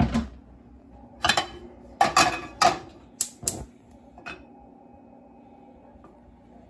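Nonstick frying pan clattering against the grates of a gas stove as it is set down on the burner: a run of sharp knocks over the first four seconds or so.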